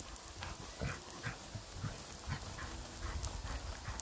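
A dog sniffing and scuffing in loose dirt as it noses at a rock: a string of short, irregular faint sniffs and scrapes.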